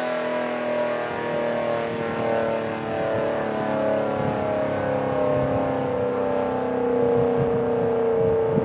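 ACA Howler outdoor warning siren sounding a steady alert: a chord of several sustained tones whose pitch sinks slowly.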